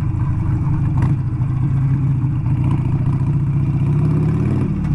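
Harley-Davidson V-twin motorcycle engine running under steady throttle on a loose, sandy dirt climb, its pitch rising a little late on and then easing back.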